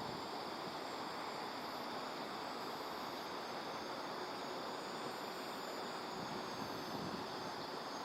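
Faint, distant whine of a radio-controlled motor glider's electric motor and propeller, drifting slowly in pitch over a steady outdoor hiss. Short chirps come and go high above it.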